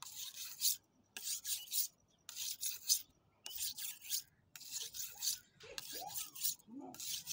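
An 8-inch knife blade stroked across a wet red sharpening stone, giving a scraping hiss on each pass, about one stroke a second, seven in all. These are finishing strokes to take off the burr and firm up the edge.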